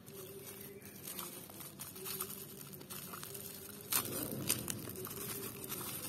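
Black plastic bubble wrap rustling and crinkling as it is pulled open by hand around a carded toy car, with two sharp crackles about four seconds in.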